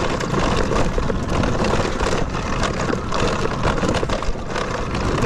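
Talaria Sting electric dirt bike clattering and banging over rough ground on a downhill run, a dense stream of knocks and rattles with rushing wind. The rider does not know what is banging and doubts it is the battery.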